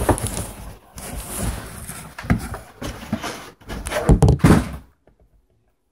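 Handling noise from a cardboard box and the phone filming it: knocks, rustles and bumps, with a cluster of loud heavy thumps about four seconds in, then the sound cuts off about a second before the end.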